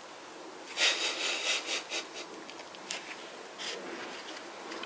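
Gloved hands rubbing and scraping against the steering rack and its mount under the car: a scraping spell about a second in, then a few short scrapes.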